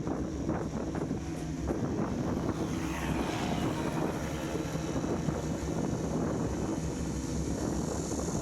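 An engine running steadily, with wind noise on the microphone and a swelling hiss about three seconds in.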